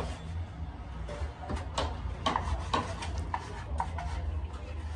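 A duster rubbing across a chalkboard, then chalk on the board in a string of short, sharp taps and scrapes as letters are written. A steady low hum runs underneath.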